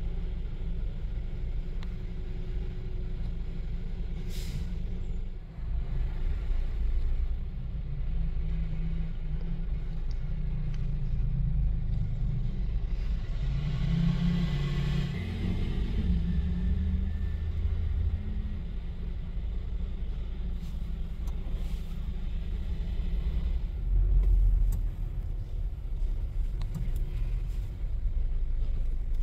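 Garbage truck and car engines running slowly in street traffic, a steady low rumble, with a brief hiss about halfway through.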